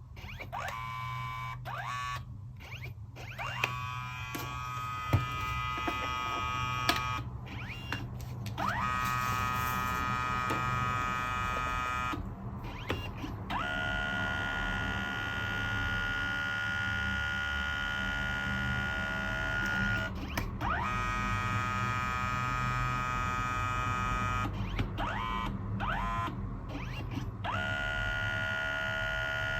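Kodak Mini Shot 2's print mechanism whining in repeated runs of a few seconds, each rising in pitch as it starts and then holding steady, as the photo paper is fed back and forth through the dye-sublimation print passes. A low steady hum lies underneath.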